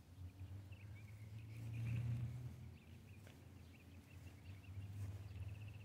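Faint outdoor ambience: a low hum that swells about two seconds in and again near the end, with faint high chirping over it.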